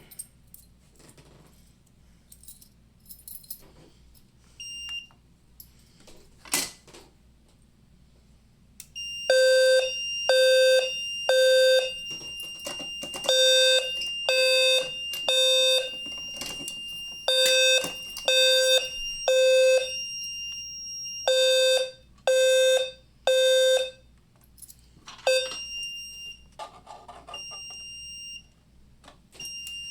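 Fire alarm horn on a demo board, with a strong low pitch near 500 Hz, sounding the temporal-three evacuation pattern: three short blasts, a pause, then three again. It starts about nine seconds in, with a steady high tone running alongside for several seconds. Before the horn there are only faint clicks and one short beep.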